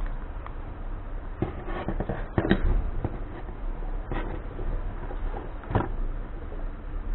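Scattered clicks and knocks of small metal parts being handled as a quad's starter motor brush holder is worked loose, the loudest about two and a half seconds in, over a steady low hum.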